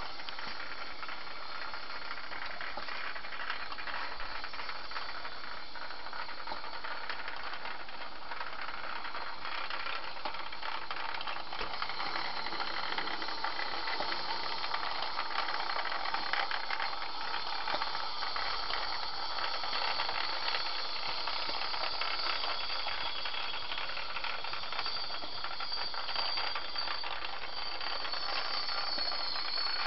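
Steady mechanical rattle and whir of a running model railway layout's small electric motors, with a thin high whine near the end.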